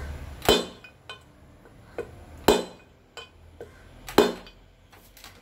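A mallet striking a metal drift to drive a needle bearing into a Bajaj CT 100 gearbox casing: three hard, clinking strikes roughly two seconds apart, each ringing briefly, with lighter taps in between.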